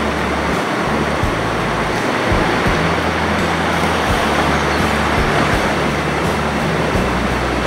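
Small snowmelt-fed mountain stream pouring over low cascades between boulders: a steady rush of water.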